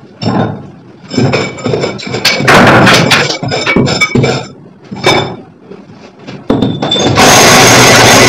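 Electric drill boring a 2.5-inch hole through a brick wall for an air-conditioner pipe, run in short bursts that start and stop every second or so. About seven seconds in, loud continuous music comes in.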